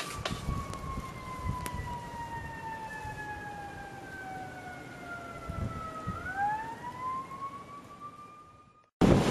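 Siren wailing: one slow fall in pitch over about six seconds, then rising again, over wind rumbling on the microphone. The sound fades away and cuts off near the end.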